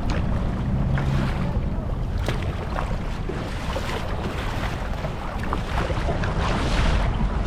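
Wind buffeting the microphone with a steady low rumble, over sea water lapping and splashing around a kayak, with short splashes about every second.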